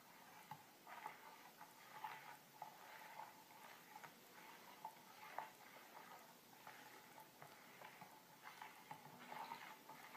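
Metal spoon stirring liquid raspberry jelly mix in a bowl, faintly scraping and clinking against the sides in an irregular rhythm.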